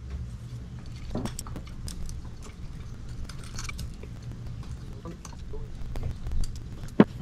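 Small metal engine parts clicking and tapping lightly as they are handled and fitted on a motorcycle cylinder head, with one sharp metallic click near the end, over a steady low hum.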